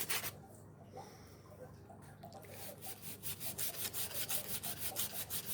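Sandpaper rubbed by hand over a wooden handle, taking off old paint. A couple of strokes at the start, a short pause, then quick, even back-and-forth strokes from about halfway, around five a second.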